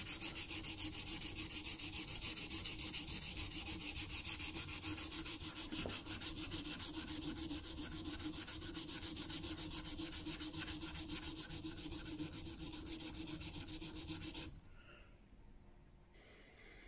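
Steel back of a 3/8-inch Marples chisel scrubbed back and forth on a wet 400-grit diamond plate in rapid, even strokes, grinding down the high spots to flatten the back. The scraping stops abruptly about fourteen seconds in.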